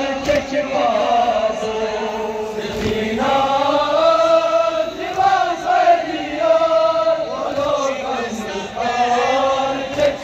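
A group of men chanting a Kashmiri noha, a Shia mourning lament, in long held melodic phrases that rise and fall with no break.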